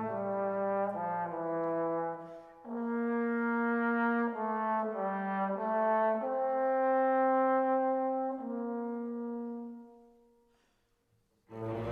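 Background music: a slow melody of long held notes that fades out about ten seconds in. A new, louder sound starts just before the end.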